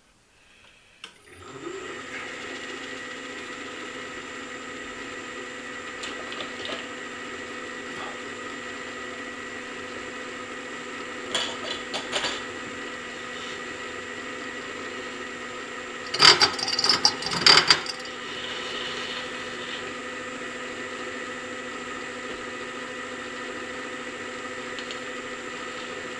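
A machine tool starts about a second and a half in and runs steadily at a fixed pitch while slicing a clamped stack of steel rings. Short clattering bursts come about 11 s in, and louder ones between 16 and 18 s in.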